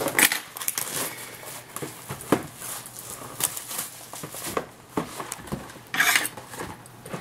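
Cardboard Panini Contenders card boxes being handled and shifted on a desk: scattered light taps and knocks, with a short scraping rustle about six seconds in.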